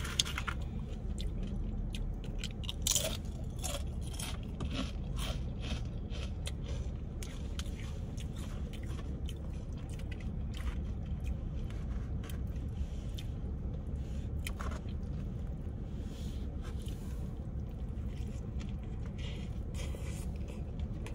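A person eating close to the microphone: biting and chewing, with many short crunches that come thickest in the first few seconds, over a steady low hum.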